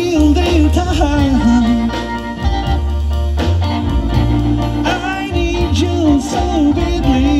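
Live blues band playing: upright double bass stepping through low notes under electric guitar and electric keyboard, with a lead line that bends and slides in pitch.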